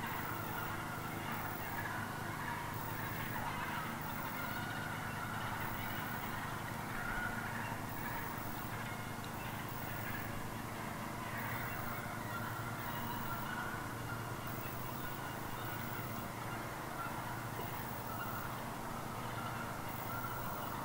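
Wild turkeys calling continuously and steadily, a run of bird calls that the uploader wonders may be turkeys fighting.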